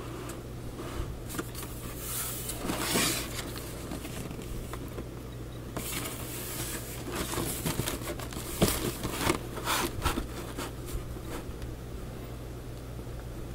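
Cardboard model-kit box being handled and turned over in the hands: irregular rubbing and scraping, loudest about three seconds in and again between about seven and ten seconds in, over a steady low hum.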